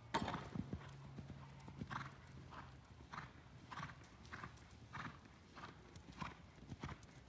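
A horse's hooves landing from a jump on arena sand, then a steady canter with a beat about every 0.6 seconds.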